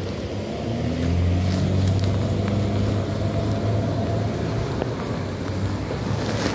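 A low, steady engine drone that grows louder about a second in and then holds.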